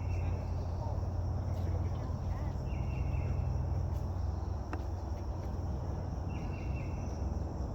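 Forest insects calling: a steady high-pitched insect drone with a short buzzy call repeating about every three to four seconds, over a steady low rumble.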